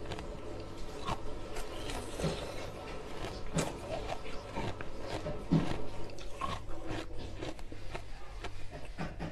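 Ice being bitten and chewed: irregular sharp crunches and cracks, several a second, over a low steady hum.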